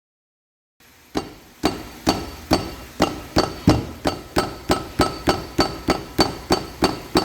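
Brake caliper on a 2007 Nissan Note knocking: about fifteen sharp metallic knocks at a steady pace a little over two a second, each ringing briefly. This is the caliper knock, play in the caliper.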